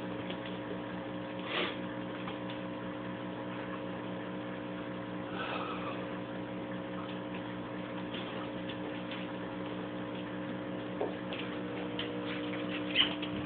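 Steady electrical hum, a few even tones held without change, with a few faint short ticks.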